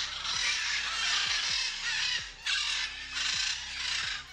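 Parrot squawking in a run of harsh, raspy calls with short breaks between them, over quiet background music.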